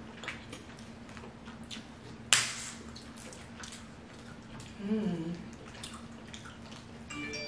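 Close-miked eating of a seafood boil: wet clicks and smacks as fingers peel shellfish shells and lips smack, with one sharp crack about two seconds in and a brief hummed "mm" about five seconds in.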